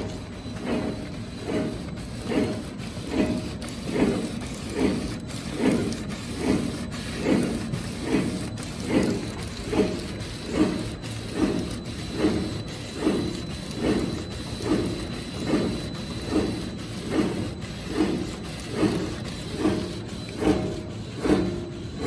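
Dough-forming and pillow-pack flow-wrapping machine running, its mechanism clattering in a steady cycle a little more than once a second.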